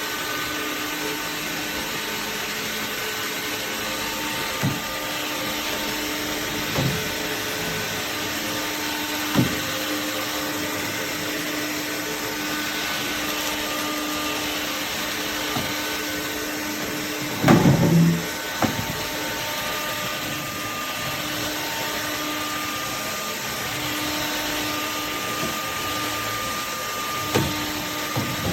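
Electrolux Ergorapido cordless stick vacuum running steadily while picking up crumbs, its hum holding through. A few short knocks come from the vacuum head, with a louder clatter about two-thirds of the way through.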